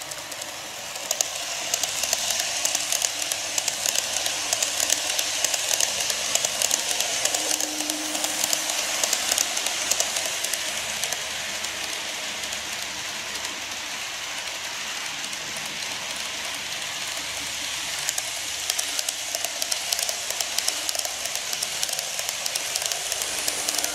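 KATO E231 series N-gauge model electric train running along sectional track, a steady rolling rattle with rapid clicks of the wheels over the rail joints. It is louder in the first few seconds, eases in the middle, and builds again near the end as the train passes close.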